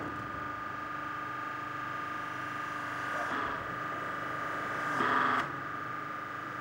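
Steady machinery whine in a railway depot, with two short louder rushes about three and five seconds in.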